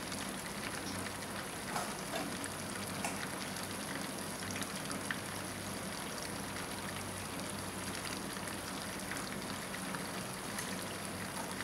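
Hot cooking oil frying on the stove, giving a faint steady sizzle with a few small crackles.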